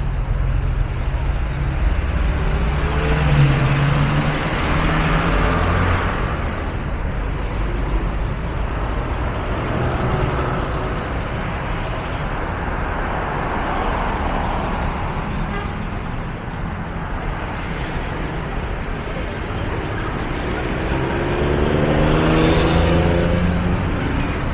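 Street traffic: a steady hum of motor vehicles, with one vehicle passing close about four seconds in and another near the end.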